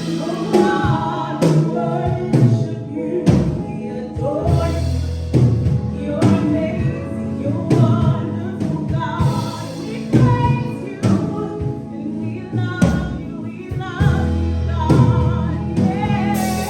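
Gospel choir singing over instrumental backing with a steady beat.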